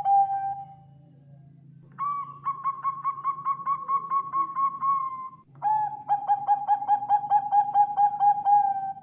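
Zebra dove (perkutut) singing: long rolling phrases of rapid staccato coo notes, about five a second, on a steady pitch. After a pause of about a second, one phrase starts, and a lower-pitched phrase follows straight on from it.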